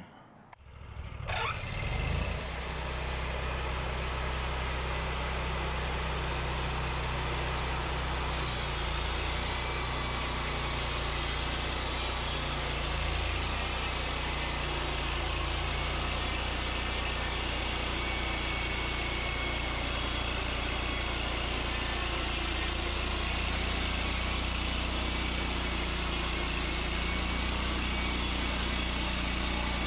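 Wood-Mizer LT40 Wide portable sawmill running steadily, its band saw head cutting along a white pine log. The sound rises in the first two seconds, then holds an even drone.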